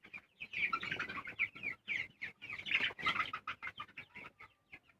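A group of coloured broiler chickens chirping and clucking, many short high calls overlapping, thinning out to a few scattered calls near the end.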